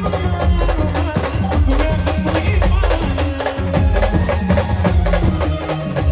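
Brass band music: a melody over fast, dense drumming with a heavy bass drum pulse.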